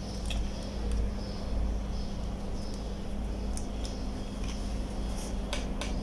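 Small plastic clicks and taps from a Kia car remote key's plastic shell being handled and fitted back together, with two sharper clicks close together near the end. A steady low hum runs underneath.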